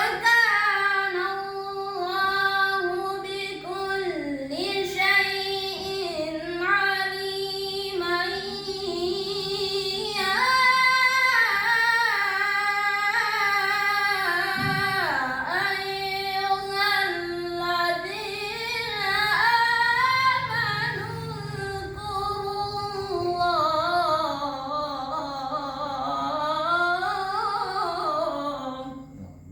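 A single high, young voice reciting the Qur'an in a melodic tilawah style, drawing out long held notes with wavering, ornamented turns of pitch and brief pauses for breath. The recitation stops at the very end.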